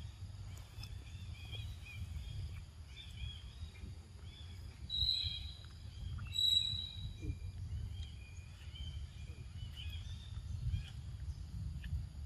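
Outdoor forest ambience: a steady low rumble of wind on the microphone, with small birds chirping throughout. About five and six and a half seconds in come two louder, clearer calls.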